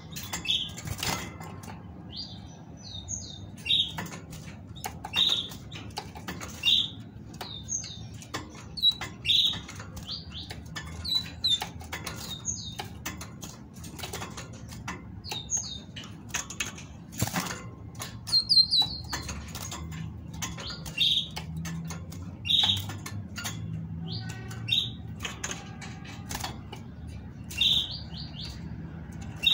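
Female great tit fluttering and hopping about a wire cage: wingbeats and sharp clicks of its feet on the wire and perch, with short high call notes repeated every second or two, now and then in quick runs of two or three.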